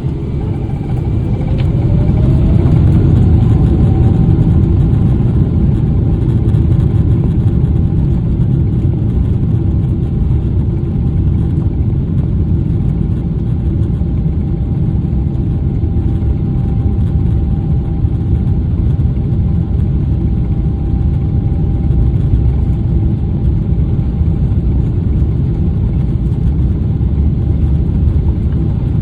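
Boeing 777 cabin during takeoff: its General Electric GE90 turbofans spool up to takeoff thrust with a rising whine in the first few seconds, then a steady loud engine noise over a deep rumble.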